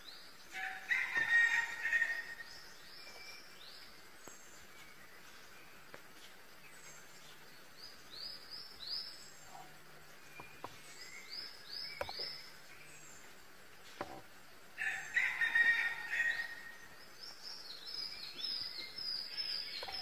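Several wild birds calling: many short, high chirps that sweep downward, repeated in runs, with two louder stretches of calling about a second in and again around fifteen seconds in. A few single sharp taps sound in the middle.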